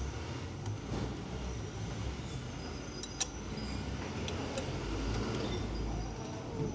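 A steady low rumble, with a few sharp light metallic clicks of the forklift's steering knuckle and king pin parts being handled.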